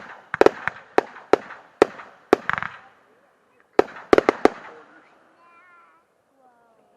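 Consumer fireworks cakes firing: sharp bangs with a crackling tail, about two a second, stopping about two and a half seconds in, then a quick cluster of three or four bangs a second later before the shots die away.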